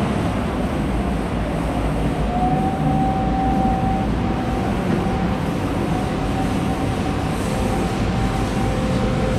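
GEA robotic milking stations running their wash cycle: a loud, steady mechanical rush of pumps and water, with a thin whine coming in about two seconds in.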